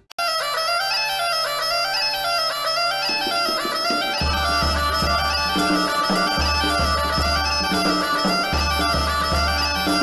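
Bagpipe music: a melody played over a steady drone, with a low repeating beat joining about four seconds in.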